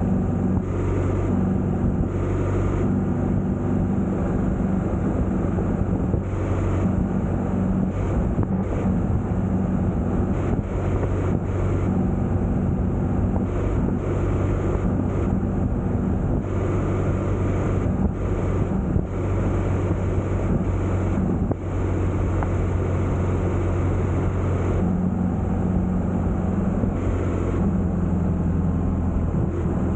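A vehicle engine running steadily at road speed, with wind buffeting the microphone in short gusts. The engine note shifts slightly about 25 seconds in.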